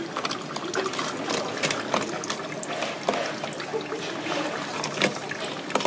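A fillet knife working along a golden pomfret's backbone and rib bones, a rapid uneven series of small clicks and scrapes as the blade passes over the bones, over a steady background hiss.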